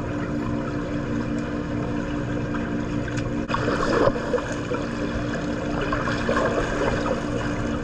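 Swimming-pool water splashing, with a louder patch about halfway through, over a steady low hum.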